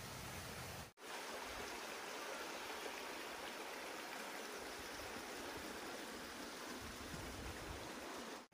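Stream water rushing steadily, an even continuous hiss that breaks off for an instant about a second in.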